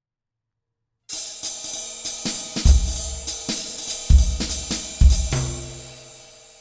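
Short intro music with drum kit and cymbals, starting about a second in with a quick run of hits over sustained tones. It ends on a final hit that rings out and fades away.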